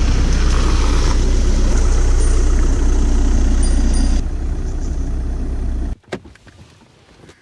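An engine running loudly with a heavy low rumble; it drops a little in level about four seconds in and cuts off suddenly about six seconds in, followed by a single click.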